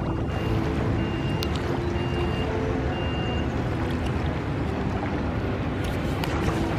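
Steady low rumble of city riverside background noise, with a high electronic beep repeating about once a second during the first few seconds and a few small clicks near the end.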